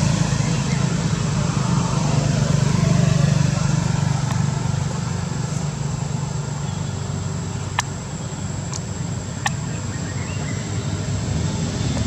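Steady low engine rumble, like motor vehicle traffic running nearby, with three sharp clicks about two-thirds of the way through.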